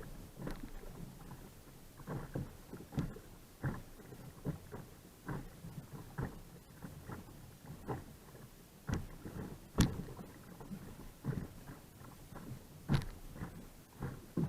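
Kayak being paddled: irregular splashing of paddle strokes in the water, about one every half second to a second, with a few sharper splashes or knocks standing out.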